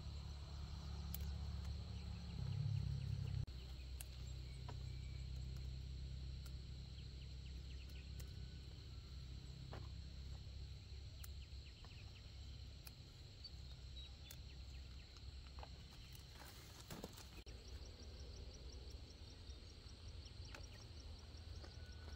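Faint outdoor field sound: insects keep up a steady high drone over a low rumble, with scattered small snaps and rustles of chili plants being picked by hand.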